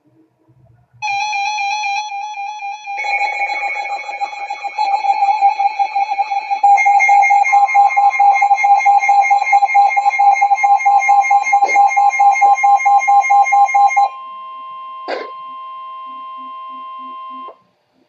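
Several weather alert radios going off at once for a severe thunderstorm warning: loud, rapidly pulsing electronic alarm beeps that overlap as more units join, with a steady higher alert tone added partway through. After about 14 seconds the beeping stops, leaving a quieter steady alert tone that cuts off shortly before the end.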